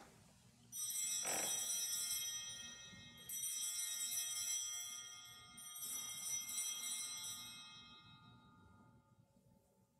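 Altar bells (sanctus bells) rung three times, about two and a half seconds apart, each ring a bright jingle of several high tones that fades away. They mark the elevation of the consecrated host at Mass.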